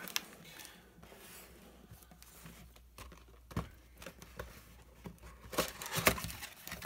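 Cardboard product boxes being handled and shifted on a tabletop: scattered light knocks and scraping, with a louder flurry of knocks and rustling near the end.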